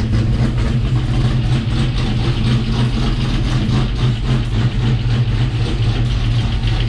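GM LS3 6.2-litre V8 in a 1972 Chevelle idling steadily with a choppy, lopey idle on its first start-up.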